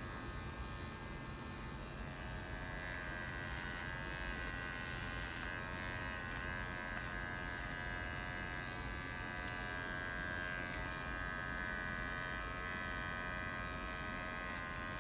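Cordless electric dog grooming clippers running steadily while shaving a standard poodle's face, an even motor hum that does not change.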